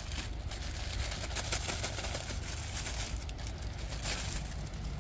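Plastic packaging rustling and crinkling in short bursts as a pair of meat-shredding claws is unwrapped by hand, over a low steady rumble.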